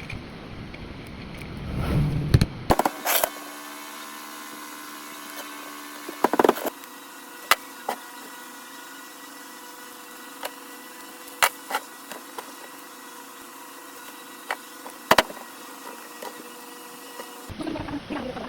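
A small electric motor running with a steady hum, broken by sharp clicks or knocks every few seconds. Before the motor starts there are a few seconds of handling noise and knocks.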